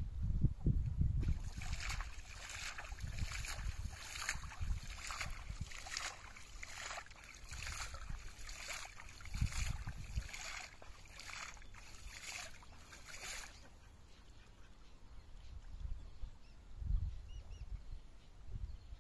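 Cast net being hauled and swished through shallow water: repeated splashing and sloshing, about two splashes a second, that stops about two-thirds of the way through. A low rumble is heard at the start.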